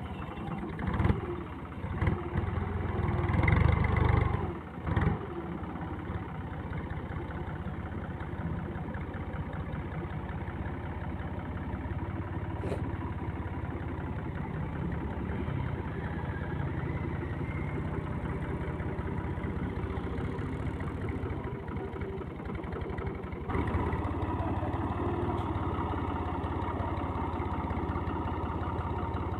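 Farm tractor's diesel engine labouring under a heavy trailer load, with loud uneven surges of throttle in the first few seconds, then running steadily before it picks up again about three quarters of the way through as the rig moves off.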